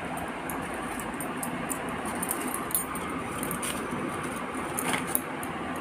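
Rustling and crinkling of a shopping bag and clothes being handled, with a couple of sharper clicks, over a steady background hiss.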